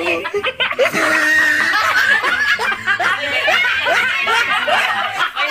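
Hearty, loud laughter with several voices overlapping, running on without a pause.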